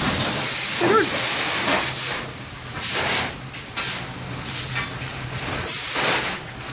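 A working structure fire, hissing and crackling, the hiss swelling and fading in surges.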